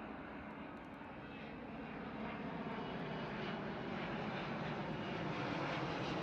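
Airbus A350 airliner's Rolls-Royce Trent XWB jet engines as it comes in to land, a steady roar growing gradually louder as the plane nears.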